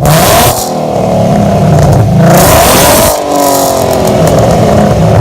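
2014 Ford Mustang V6's 3.7-litre engine, breathing through BBK long-tube headers, an off-road X-pipe with no catalytic converters and a Magnaflow Competition cat-back exhaust, being revved twice. The first rev peaks right at the start and falls away; the second climbs about a second and a half in, is held for about a second, then drops back.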